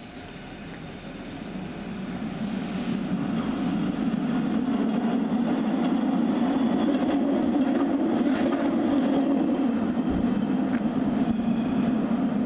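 Škoda 15T ForCity tram running along street track: a steady rolling rumble that builds over the first few seconds as it comes closer, then holds.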